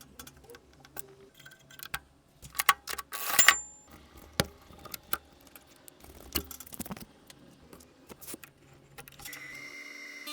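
Small metal parts of an antique National Cash Register's mechanism clicking and clattering as it is handled, in irregular sharp clicks with a louder jangle about three seconds in. A steady ringing tone starts about a second before the end.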